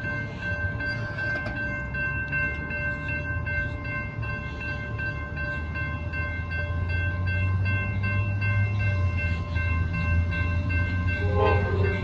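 Amtrak Texas Eagle passenger train approaching, the low rumble of its diesel locomotive growing louder about halfway through, with steady high tones held throughout.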